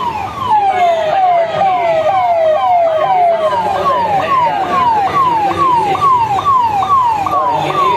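Electronic siren of a police SUV, sounding a repeated falling whoop. The drops come slower and slide lower at first, then quicken to about two or three a second from about halfway.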